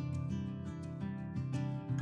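Background music: plucked and strummed acoustic guitar, notes changing about every half second.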